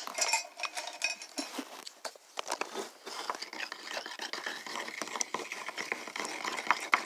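Wooden craft stick stirring and scraping thick paint inside a small plastic paint bottle: a steady run of small clicks and scrapes.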